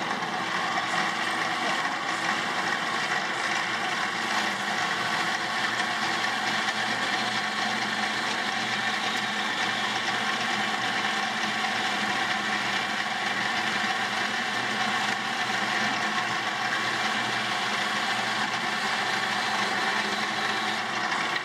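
Homemade vertical bandsaw running steadily, its blade driven by an electric motor fed from a small battery while it cuts through a block of wood. On that battery it runs slower than it would on a full 24-volt supply.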